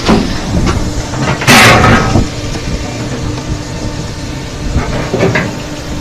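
Firewood processing machine running with a steady hum and scattered knocks, with a loud burst of noise lasting under a second about one and a half seconds in.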